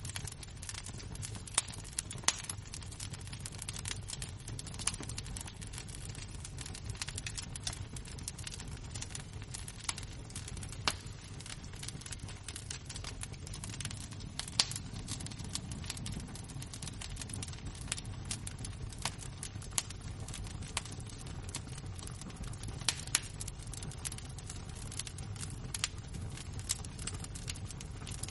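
Embers and flames of a fire crackling, with sharp pops scattered irregularly over a low steady rumble.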